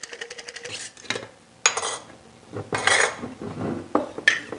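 Hard-boiled eggs rattling rapidly against the inside of a water-filled glass mason jar as it is shaken to crack their shells; the rattle stops a little under a second in. Several clinks, knocks and scrapes of glass and metal follow as the jar is set down and its lid taken off.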